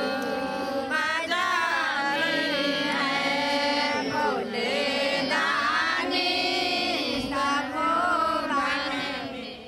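A group of women singing a devotional prayer song together, with melodic, chant-like phrases that continue without a break.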